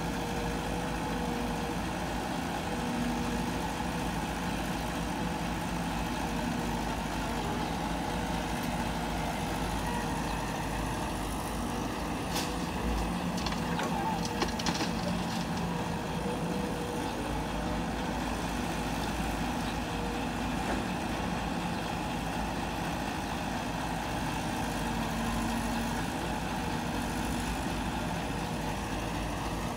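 Diesel engines of a CAT 312 excavator and a dump truck running steadily while the excavator loads soil. Midway through there is a brief clatter as a bucketful of soil drops into the truck's steel bed.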